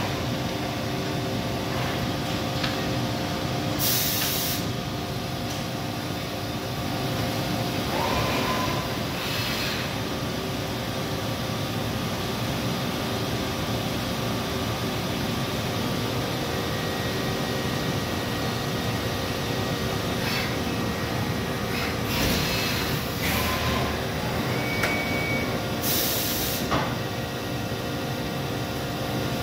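Okuma Multus U4000 CNC mill-turn lathe powered up: a steady hum of pumps and fans with several steady tones, broken by several short hisses, the strongest about four and twenty-six seconds in.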